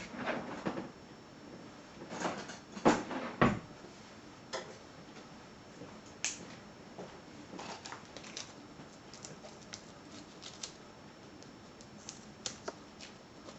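Scissors cutting into plastic packaging and the packaging being handled: irregular sharp snips and crinkling, the two loudest close together about three seconds in, then scattered lighter clicks.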